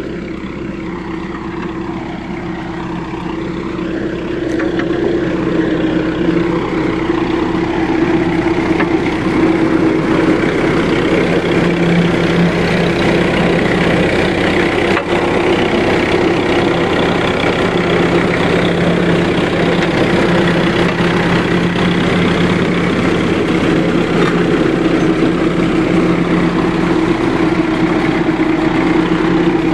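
Heavy engine of construction machinery running steadily with a constant low hum, growing louder over the first several seconds and then holding steady.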